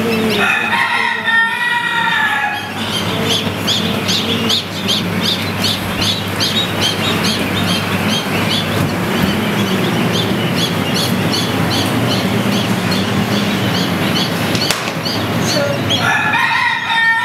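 Many newly hatched chicks peeping rapidly and continuously over a steady whir of incubator machinery. A longer crowing call sounds at the start and again near the end.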